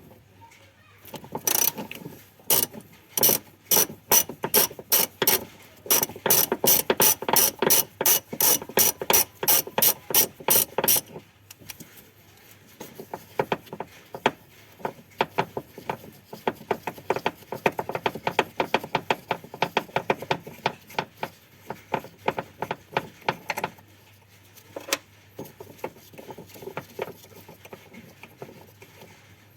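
Hand ratchet wrench clicking in repeated strokes as a fastener on the rear shock absorber is turned. For about ten seconds the clicks are loud, at two to three a second. After that they grow softer and quicker for another twelve seconds, with one lone click near the end.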